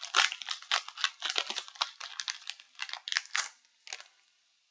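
Foil trading-card booster pack crinkling and crackling as it is opened by hand, in a quick irregular run of crackles that stops about four seconds in.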